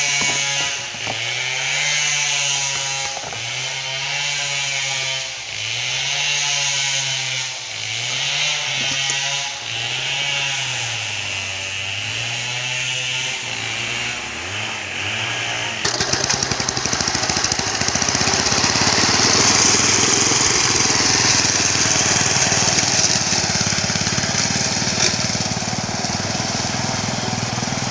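Small engine of a homemade push grass-cutting machine running, its pitch rising and falling again and again as it is revved up and down. About halfway through the sound changes abruptly to a louder, rougher, steady racket.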